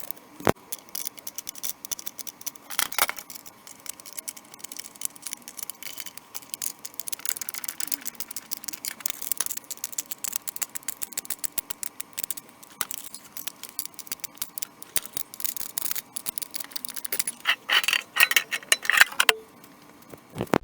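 Rapid small metallic clicks and rattles of hand work on metal parts, growing busier and louder near the end, over a faint steady hum.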